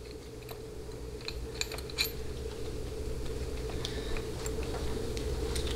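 Scattered light metallic clicks and taps of small bolts and the accumulator housing being handled and set in place on a transmission valve body, with a steady low hum underneath.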